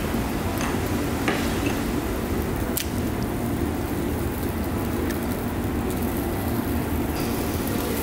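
Steady low restaurant background noise, with a few light clicks of ceramic and chopsticks as a raw egg is tipped from a small cup into a porcelain bowl and stirred.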